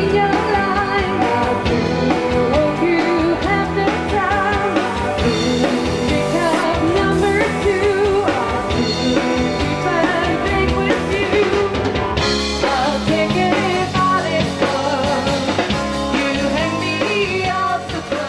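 A live rock band playing: a woman singing over drum kit, electric guitar, bass guitar and keyboard.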